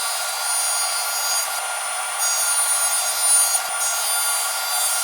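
Table saw running and cutting through a wooden table leg held in a jig: a steady, continuous saw noise with a constant high whine, getting a little louder about halfway through.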